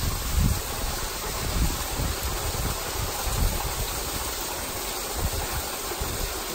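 Small waterfall pouring over rock: a steady rushing hiss, with low, uneven rumbles underneath.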